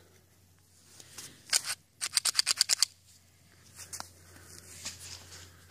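Mud- and sand-packed Beretta 92FS pistol being worked by hand. A gritty metal scrape comes about a second and a half in, then a quick run of about nine sharp clicks, then faint handling sounds. The slide is sticking short of going fully into battery.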